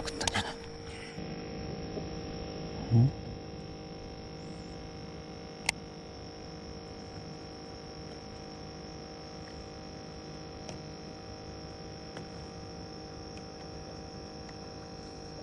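Steady hum made of several even tones, with a dull knock about three seconds in and a single sharp click a few seconds later.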